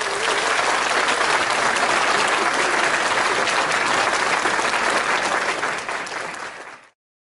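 Crowd applauding, a dense patter of many clapping hands, fading near the end and then stopping.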